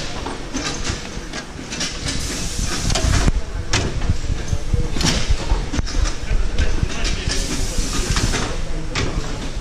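Automatic carousel screen-printing press running, with repeated sharp hisses of air from its pneumatic heads over a steady machine rumble.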